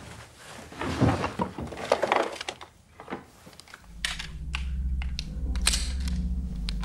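A handgun being taken out and handled: rustling and soft knocks, then several sharp clicks. A low steady hum comes in about four seconds in and carries on under the clicks.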